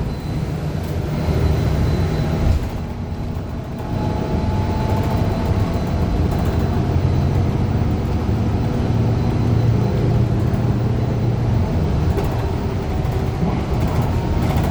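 Inside a 2015 Gillig low-floor CNG transit bus under way: the Cummins Westport ISL G engine and road rumble make a steady low drone, easing briefly about three seconds in. A faint whine holds through the middle.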